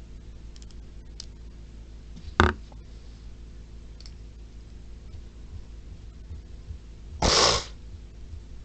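A single sharp click a little over two seconds in, and a short noisy scrape about half a second long near the end, over a steady low hum.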